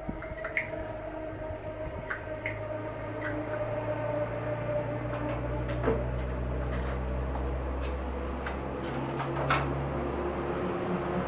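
Scattered clicks and knocks of plastic and metal parts as an electric rice cooker's switch assembly is handled and its bottom cover fitted back on, over a steady low background hum.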